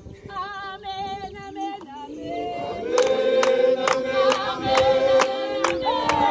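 A lone voice sings a wavering line, then about halfway through a large group joins in with full choral singing, while big cowhide drums are struck in a steady beat of about two strokes a second.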